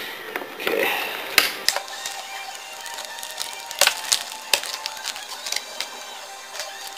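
Fingerboard packaging and a small wooden Berlinwood fingerboard deck being handled and unpacked, with irregular sharp clicks and taps of card, plastic and wood.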